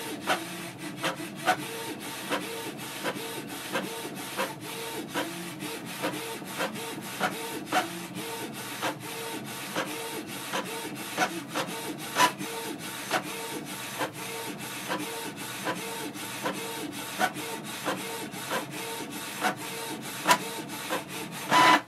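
Canon PIXMA MG2525 inkjet printer printing a page: a steady mechanical whir from the print head moving back and forth and the sheet feeding out, with regular clicks about twice a second. It stops near the end.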